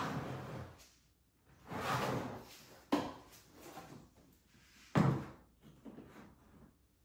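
Hard plastic tool carrying case being handled and moved. There is a short rustle, then two sharp knocks about two seconds apart, the second the louder, as the case is set down.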